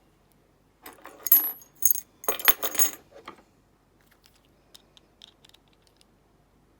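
Small metal padlock parts clinking and rattling together with a bright ringing, in a cluster between about one and three seconds in, followed by a few faint light ticks.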